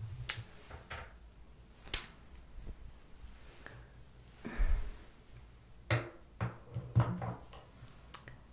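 Scattered soft clicks and taps from makeup items being handled, about five in all, with a duller thump about halfway through.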